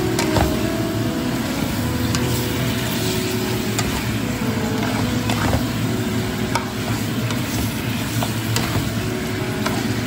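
Broccoli and sliced meat stir-frying in a pan, sizzling steadily as they are tossed and stirred, with a few sharp clicks of the spatula against the pan.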